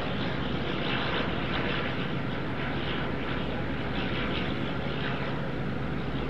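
Dash 8 twin-turboprop (the Golden Knights' C-147) flying past, its engines and propellers giving a steady drone.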